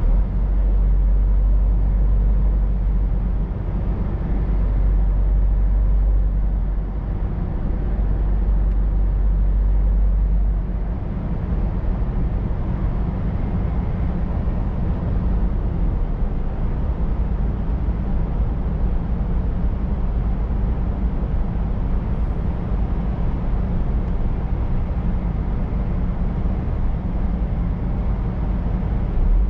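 Scania R500 truck's V8 diesel engine running with a steady low drone as the truck drives, over an even road noise. The deepest part of the rumble drops away about ten seconds in.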